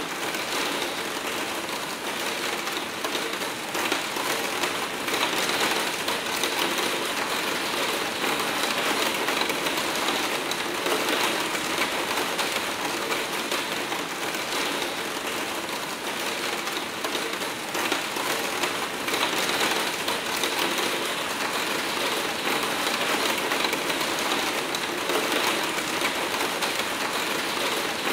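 Hard rain pattering steadily on a skylight pane, a dense, unbroken drumming of countless drops on the glazing.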